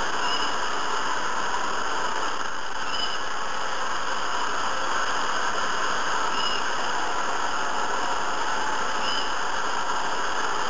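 Hair dryer running steadily on, an even rush of air and motor. A faint short high chirp recurs about every three seconds.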